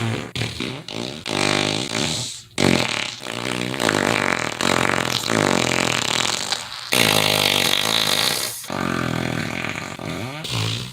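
A run of fart sound effects: about eight buzzing farts of one to two seconds each, one after another with short breaks, each at a different pitch.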